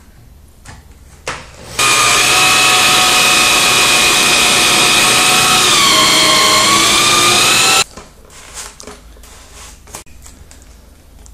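Power drill running for about six seconds, spinning a solid fiberglass rod to bore out the spar hole through a foam wing; its whine dips in pitch for a moment partway through as it loads up, then stops abruptly.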